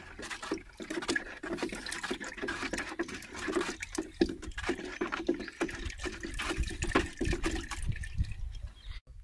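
Lime slurry for Bordeaux mixture being stirred with a wooden stick in a plastic jar: sloshing liquid with many quick knocks and scrapes of the stick against the jar. It cuts off abruptly near the end.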